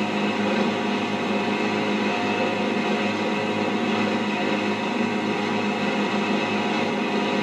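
Motorboat running steadily at speed: an even engine drone with the rush of wind and water.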